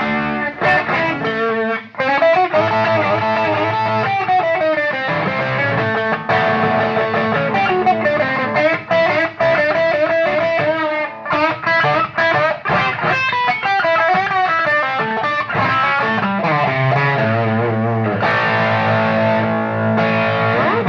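Electric guitar played through a Bugera 333XL valve amp's overdrive channel: distorted lead lines and chords with bent, wavering notes, broken by a few brief stops.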